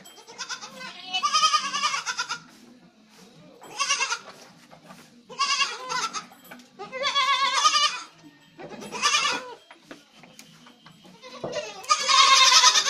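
Osmanabadi goats bleating: about six separate quavering bleats, a second or two apart, with the last near the end the loudest.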